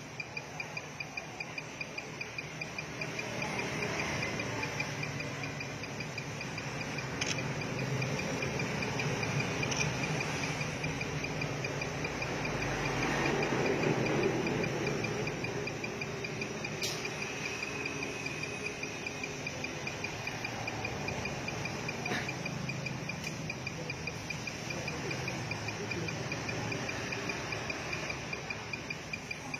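A cricket chirping in a steady, fast pulsing trill, over a low background rumble that swells and fades about halfway through.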